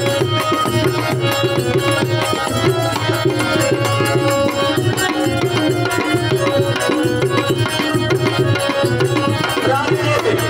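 Music with fast, steady tabla drumming under sustained held melodic notes.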